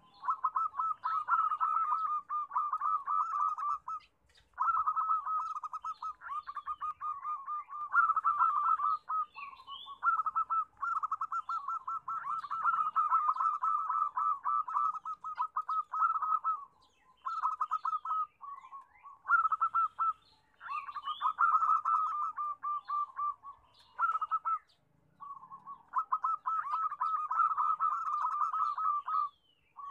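Zebra doves cooing in fast staccato trills, the calls overlapping into a near-continuous busy chorus with a few brief pauses.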